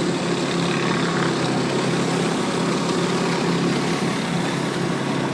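Gas pressure washer running steadily: an even engine hum under a constant hiss.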